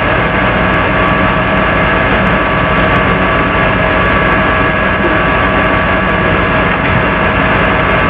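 Loud steady hum and hiss: an even noise with several fixed humming tones running through it, unchanging throughout.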